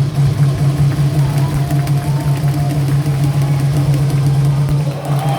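Music over a baseball stadium's PA system: a steady low bass note starts abruptly and holds under a faint melody line.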